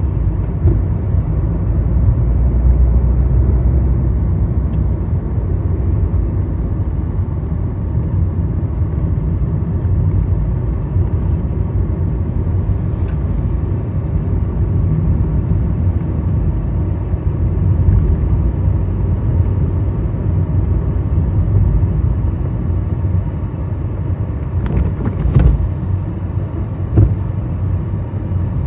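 Car being driven, a steady low rumble of engine and road noise. A brief hiss comes about twelve seconds in, and a few short sharp knocks near the end.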